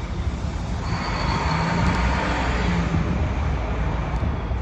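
A large vehicle passing close by: a steady low rumble with a rush of noise that swells about a second in and eases off again, carrying a faint steady hum.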